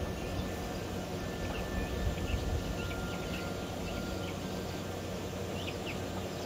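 Outdoor ambience: a steady low rumble with short, faint bird chirps scattered through it.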